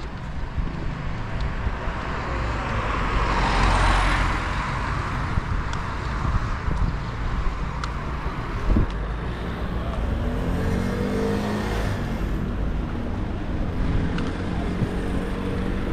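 City street traffic: a car passes close, loudest about four seconds in, over a steady background of engine and road noise. There is a short sharp knock near nine seconds.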